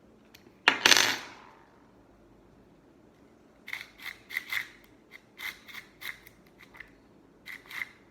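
A loud metallic clatter about a second in, then from about halfway a run of small, irregular metallic clicks and clinks as the mini chainsaw attachment's bar and chain are tightened down by hand.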